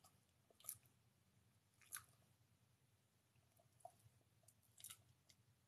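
Wire fox terrier eating from a bowl: faint chewing, with three short crunches spread out over a few seconds.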